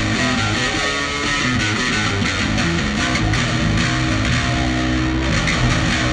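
Electric guitar and bass guitar played live through stage amplifiers, loud strummed chords ringing on.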